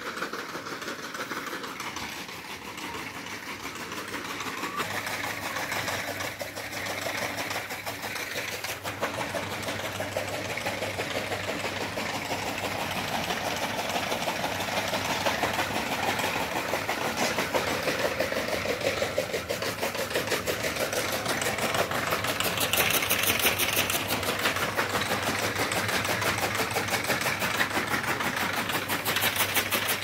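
A small engine running steadily with a fast, even clatter, growing gradually louder.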